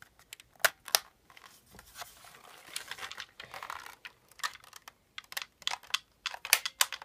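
Handling clicks and rattles from a plastic airsoft AR-15 rifle as its selector and trigger are worked: two sharp clicks just under a second in, then a run of irregular clicks through the second half.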